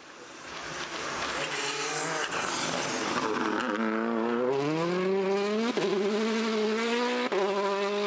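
Subaru rally car's flat-four boxer engine accelerating hard, growing louder over the first second or two, then its note rising steadily in pitch, with two short breaks in the note in the second half.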